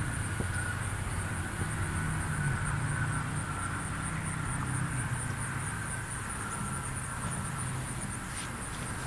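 Steady outdoor ambience: a continuous low rumble under a rapid, even, high-pitched pulsing, with a few faint ticks near the end.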